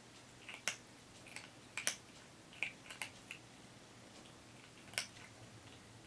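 Orange-and-white kitten eating from a bowl: several sharp, irregular crunches and clicks in small clusters.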